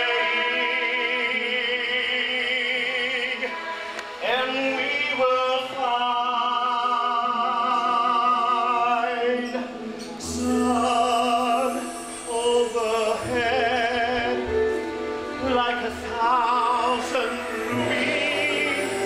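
Live operatic-style singing with wide vibrato, a man's voice at the start. Two long held notes fill the first half, and shorter sung phrases follow in the second half.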